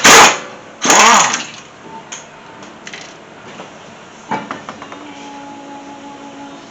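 Impact wrench run in two short, loud bursts about a second apart, loosening the wheel's lug nuts. A few light knocks follow later, then a faint steady hum.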